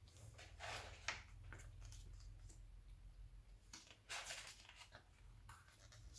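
Near silence with a low steady hum, broken by a few faint rustles of magazine pages being handled.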